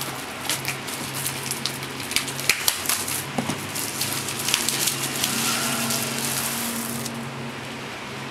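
Clear plastic shrink-wrap being peeled off a cardboard hard-drive box and crumpled, a dense run of crackles and crinkles with the box rustling as it is handled.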